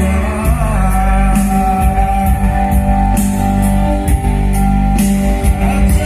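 Music with a singing voice: long held sung notes over steady bass and a regular beat.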